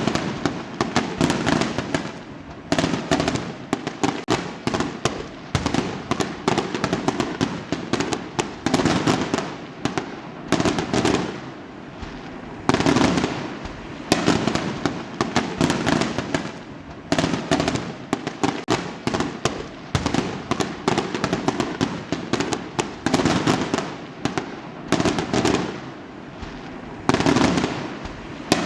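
Fireworks crackling and popping in dense volleys of rapid bangs, coming in loud waves every second or two.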